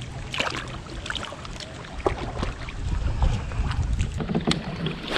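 Wind rumbling on the microphone from a kayak, with a few brief water splashes and light knocks as a bass is released by hand and the angler shifts in the plastic kayak.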